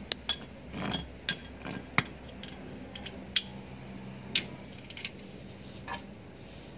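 Scattered sharp metallic clicks and clinks of a hand tool working at a car's engine oil drain plug, about ten in all, irregularly spaced.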